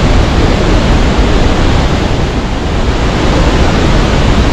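Athirappilly waterfall in monsoon flood: a loud, steady roar of falling water.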